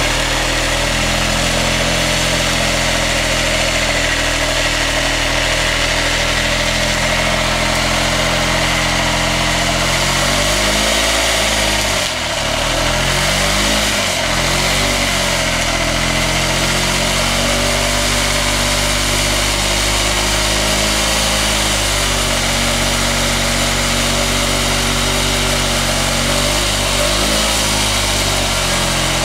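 Suzuki Burgman AN400 scooter's single-cylinder engine held at high revs in a stationary burnout, its rear tyre spinning on wet concrete. The revs dip and recover a few times around the middle and again briefly near the end.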